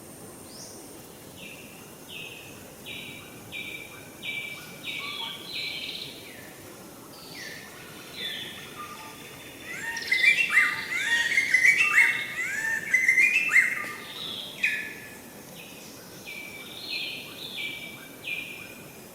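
High-pitched animal calls: a run of short repeated notes about twice a second, then a louder, denser cluster of overlapping calls in the middle, and another run of short notes near the end.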